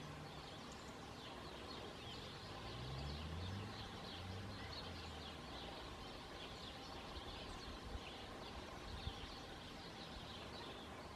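Honeybees buzzing faintly at a hive entrance as they land and take off, with small birds chirping in the background. A low hum rises in pitch about three seconds in, and two soft bumps come about eight and nine seconds in.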